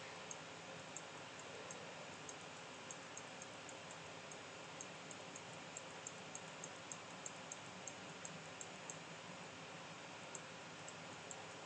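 Faint computer mouse clicks, irregular and a couple a second at times, over a steady hiss.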